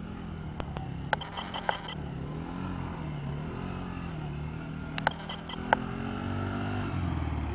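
Can-Am DS70 youth ATV's small single-cylinder four-stroke engine running as it is ridden in laps, its pitch rising and falling with the throttle and getting louder near the end. A few sharp clicks stand out over it.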